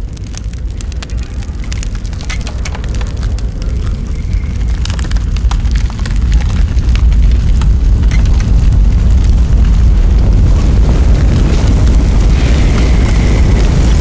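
Low rumble of fire with scattered crackles, swelling louder about six seconds in.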